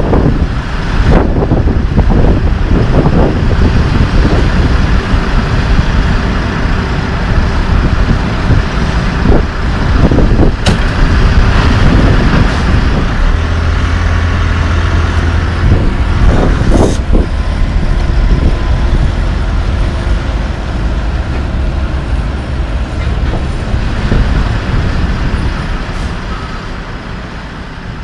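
Diesel engine of an asphalt paver running steadily amid passing road traffic, with a few short sharp clicks; the sound fades out near the end.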